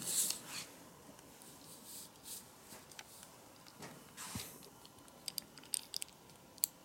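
Handling noise as a leather belt is moved and slid about on a wooden tabletop, with soft brushing and knocks, then a few sharp little clicks near the end as the metal buckle is picked up and handled.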